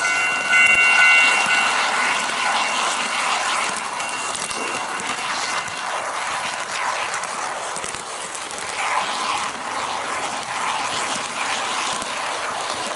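HO-gauge model train running on track, heard from a camera riding at its front: a steady rolling rattle of the wheels on the rails. During the first two seconds, as it passes a model level crossing, a steady high electronic tone from the crossing signal sounds and then fades.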